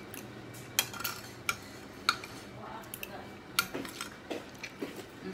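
Metal spoon and fork clinking and scraping against plates and a bowl during a meal: a scattering of sharp, separate clicks, several seconds apart at most.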